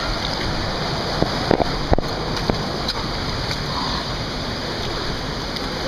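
Steady rushing of moving water, with a few faint clicks and knocks.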